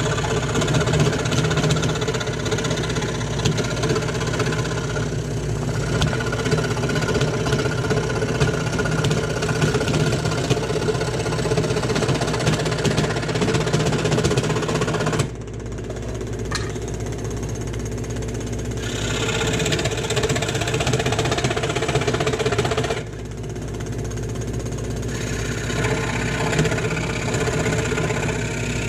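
Scroll saw running, its fine reciprocating blade cutting through a dark hardwood board. The hiss of the cut drops away twice for a few seconds, around the middle and again later, while the saw's motor keeps running.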